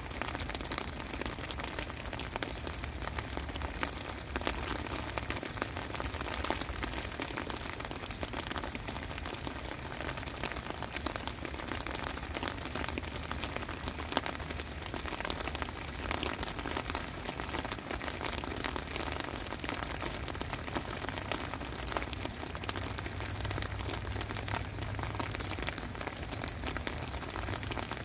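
Steady rain falling, a dense even patter of drops, with a low rumble underneath that swells for a few seconds near the end.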